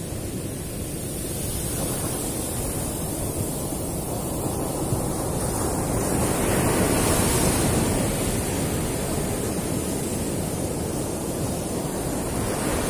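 Ocean surf washing onto a beach, with wind on the microphone; the rush of water swells to its loudest about six to eight seconds in.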